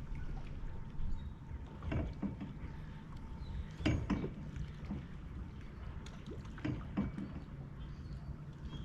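Sounds on board a small fishing boat: a steady low hum with several sharp knocks and taps, the loudest about four seconds in.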